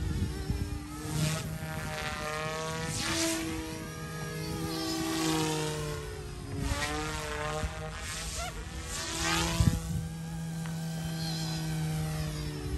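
Small electric RC helicopter (YXZNRC F280) in flight: a steady whine from its brushless motors and rotor blades. A whooshing sweep rises and falls every few seconds as the helicopter moves about.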